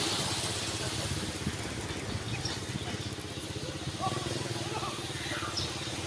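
Motorcycle engine idling steadily, with even low pulsing, amid street noise.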